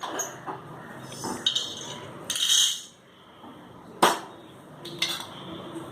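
A spatula scraping and clinking in a pan as spices are dry-roasted and stirred, with a sharp metal clink about four seconds in.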